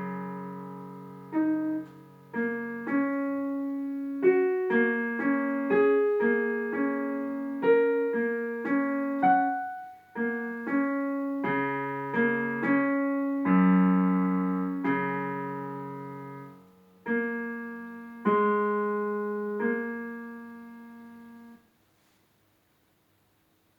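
Piano playing a slow piece of single notes and chords, each struck cleanly and left to ring and fade. It ends on a final chord that stops about two seconds before the end.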